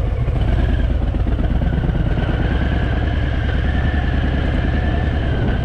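Harley-Davidson V-twin motorcycle engine running steadily, a deep pulsing rumble with a thin steady whine above it.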